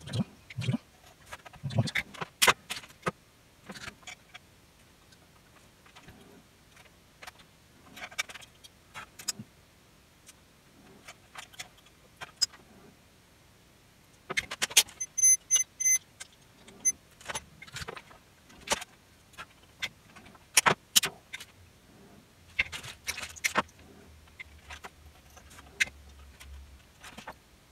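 Handling noise from work inside an opened AV receiver: scattered clicks, clinks and rustles as wires, tools and small metal hardware are handled, with quieter gaps between.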